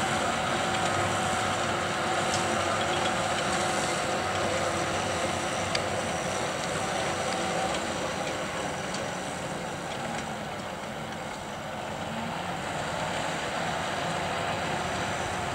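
John Deere tractor's diesel engine and the PTO-driven round baler it pulls, running as a steady drone while baling cut grass; it eases slightly about ten seconds in.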